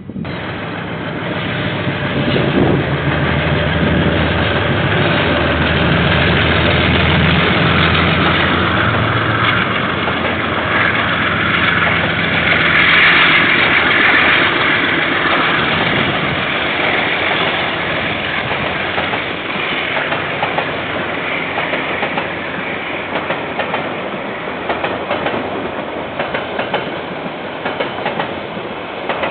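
Diesel-hauled freight train passing: the locomotive's engine running loudly over the first several seconds, then the freight wagons rolling by with wheels clicking over the rail joints.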